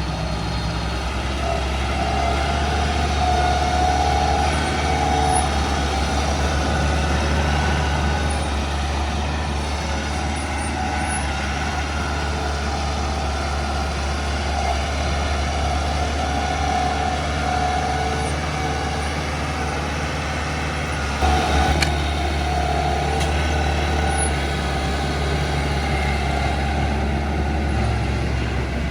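Bulldozer's diesel engine running steadily under load, with a wavering higher whine above the low engine drone and a brief louder clank about three quarters of the way through.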